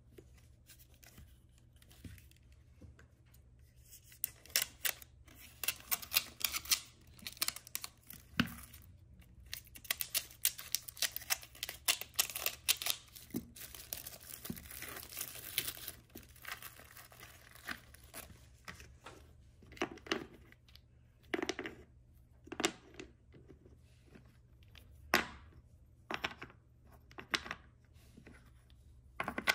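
Packaging being torn open and crinkled for about ten seconds while wooden toys are unboxed, followed by scattered clicks and knocks as the contents are handled.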